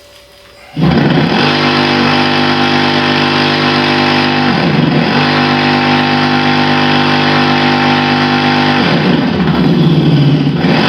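Synthetic combustion-engine sound from an aftermarket sound-effect speaker module on a Super Soco electric motorcycle, turned up loud. It cuts in suddenly about a second in, holds a steady engine-like note, and shifts in pitch briefly twice, near the middle and near the end.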